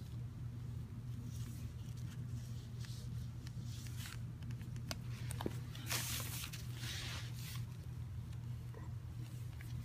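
Mixed-hair calligraphy brush dragging across rough, crisp bamboo-fibre gasenshi paper, a dry scratchy rustle in several strokes, loudest about six to seven and a half seconds in. A steady low hum runs underneath.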